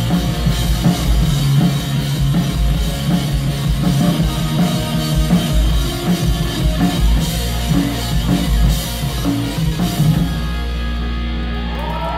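Live rock band playing an instrumental passage: drum kit pounding under distorted electric guitars and bass. About ten seconds in the drumming stops and a held chord rings on.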